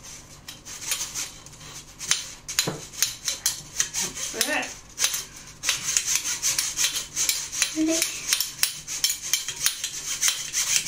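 Metal spoon scraping and rubbing against a wire-mesh sieve, pushing lumps of flour and cocoa powder through, in quick uneven strokes that come thicker in the second half.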